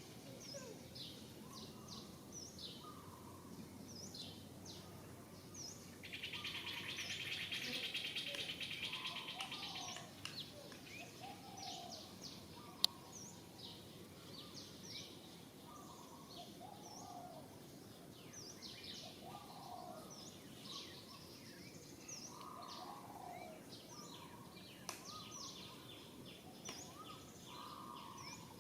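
Several birds chirping and calling, with many short high chirps and lower looping calls. A steady high buzz runs from about six to ten seconds in, and there is one sharp click just before halfway.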